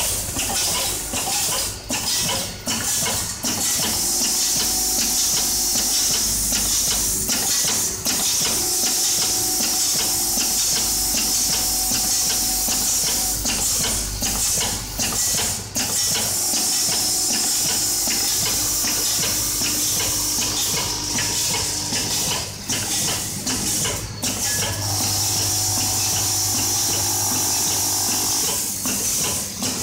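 Hardware-parts counting and packing machine running, its vibratory bowl feeder shaking small metal nuts and washers: a steady hum under a constant hiss and dense rattling.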